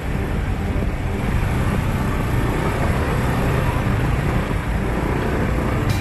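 Motorbike taxi engine and the road traffic around it, a steady low rumble of cars, scooters and buses heard from the bike's pillion seat.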